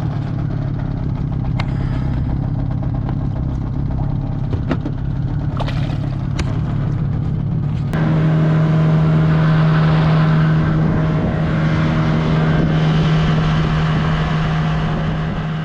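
An engine running steadily with a low hum. About halfway through it gets louder and fuller, and there are a few sharp clicks before that.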